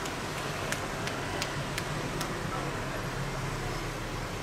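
Steady street traffic noise with a low hum. In the first half, light sharp clicks come about two a second from the massage work, then stop.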